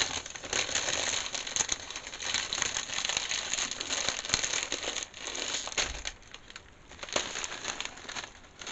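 Potato-chip bag crinkling as a hand reaches in and pulls out chips, with crunching of ridged potato chips. The crinkling dies down about five seconds in, leaving softer scattered crackles.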